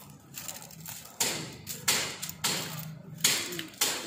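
Bamboo arrows being yanked in handfuls out of a straw archery target: about five sharp scraping rattles, roughly one every half second, each dying away quickly.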